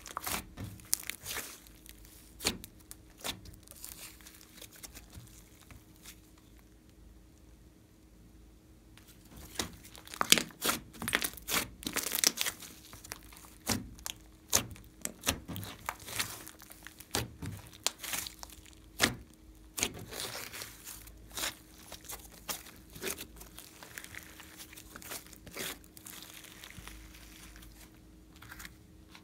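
Hands squishing and poking a large mass of glossy slime, the trapped air popping and crackling in irregular sharp clicks. The pops thin out for a few seconds about a quarter of the way in, then come thick and loud for a few seconds.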